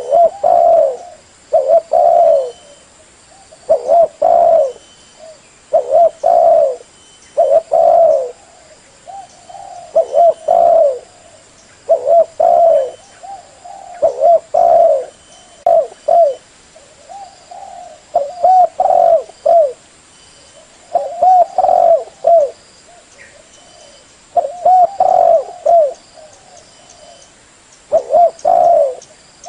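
Spotted dove cooing: short, loud coo phrases repeated roughly every two seconds. This is a recorded decoy call used to lure wild spotted doves.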